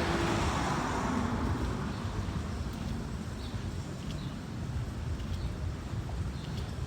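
A car passing close by, its tyre and engine noise fading away over the first couple of seconds, then a steady rumble of street traffic.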